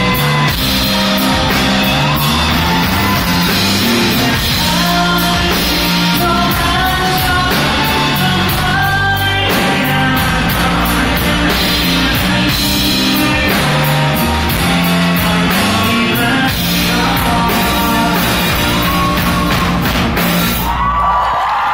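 A rock band playing live in a hall: a male singer shouting and singing over electric bass, guitar and drums with steady cymbal hits. The band stops about a second before the end and the audience starts whooping and cheering.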